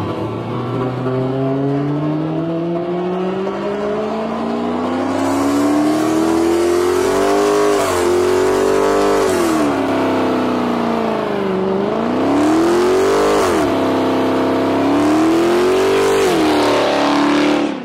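Dodge Challenger doing a burnout, the rear tyres spinning on the pavement. The engine's pitch climbs steadily over the first seven seconds or so, then the revs drop and rise again several times before the sound stops suddenly at the end.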